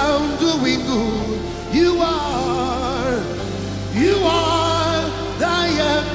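Live gospel worship music: a single voice sings long, wordless held notes with wide vibrato, sliding up into each new phrase twice, over sustained keyboard-like chords.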